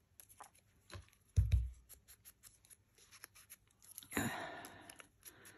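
Hands handling paper and craft supplies on a desk: light rustles and small clicks, a dull thump about a second and a half in, and a louder half-second rustle about four seconds in.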